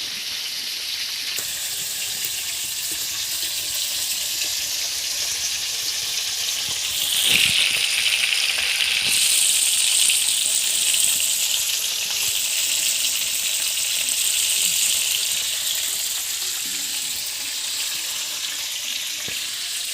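Fish frying in hot oil: a steady sizzle that swells louder after a brief knock about seven seconds in, then eases down again near the end.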